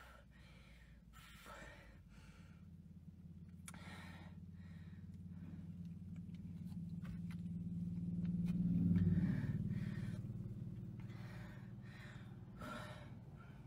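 A person taking sharp breaths and sighing in the pauses between long swigs from a bottle of Sprite. Under the breaths, a low hum swells to its loudest just past the middle and then fades.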